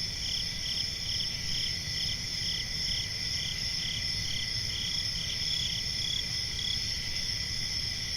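Crickets chirping in a summer night chorus: steady high trills, with one chirp pulsing about twice a second that fades out in the later part.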